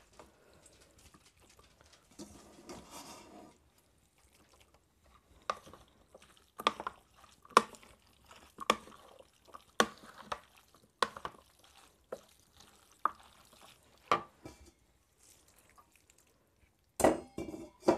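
Dressed pasta salad being mixed by hand and with a wooden spoon in a large bowl: soft wet stirring with sharp knocks about once a second, and a louder clatter near the end.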